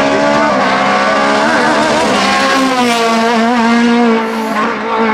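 Race car engine running hard at high revs, its pitch climbing for a couple of seconds and then dropping sharply about four seconds in as the driver shifts or lifts off.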